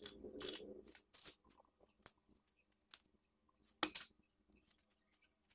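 Faint handling noises of craft materials: a rustle in the first second, then scattered light clicks and taps, with one sharper click about four seconds in.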